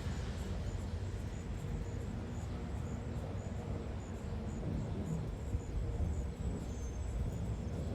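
Insects chirping outdoors: a faint, high, short chirp repeating at a steady pace over a low, steady background rumble. A faint steady low hum fades out partway through.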